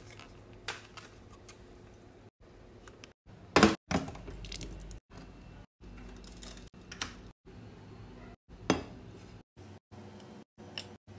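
Kitchen handling sounds: scattered knocks and clicks from a small pot on a ceramic hob, the hob's control knob being turned and quail eggs going into the pot of water. The loudest is a close pair of knocks about three and a half seconds in.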